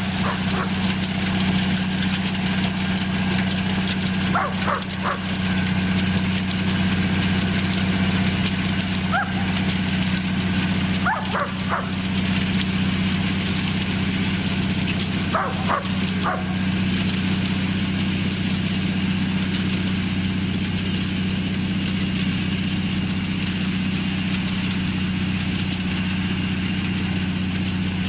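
A farm tractor's engine running steadily, with a dog barking a few times over it in the first half.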